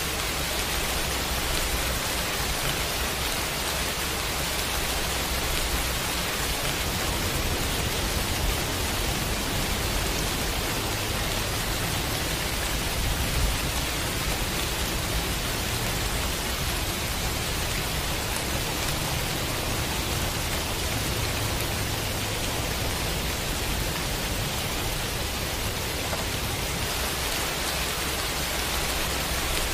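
Steady heavy rain, an even hiss across the whole range, with a low rumble underneath that grows stronger through the middle.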